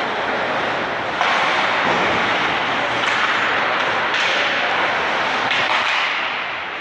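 Ice hockey rink ambience during play: a steady, loud hiss of noise that rises a step about a second in, with a few faint knocks.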